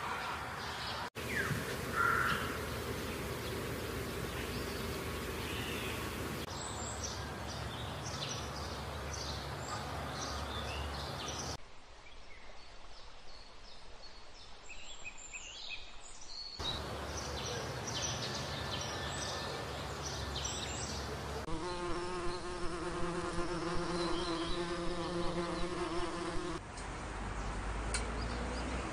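Outdoor nature ambience that changes abruptly every few seconds, with brief high bird chirps in several stretches. In the second half a flying insect buzzes steadily for about five seconds.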